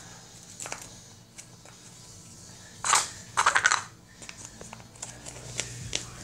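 Plastic shopping bag crinkling in two short crackly bursts about three seconds in, with a few light clicks of things being handled.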